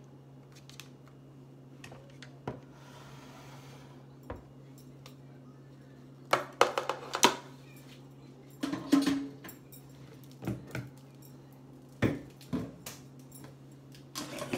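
Kitchen utensils and dishes clattering in scattered knocks and clicks, busier in the second half, over a steady low hum.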